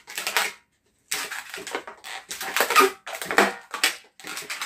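Latex twisting balloons rubbing and squeaking against each other and against the hands as a small bubble is formed and twisted. The sound comes as a run of short, scratchy squeaks, with a short gap about half a second in.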